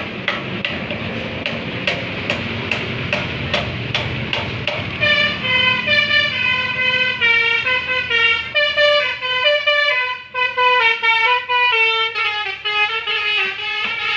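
Basuri 'telolet' multi-tone bus horn playing a melody of short stepped notes, starting about five seconds in. Before the melody there is a rough running noise with sharp clicks a little over two a second.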